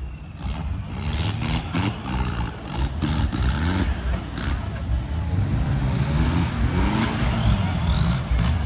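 Off-road 4x4 engine revving, its pitch rising and falling repeatedly, with a cluster of sharp knocks in the first few seconds.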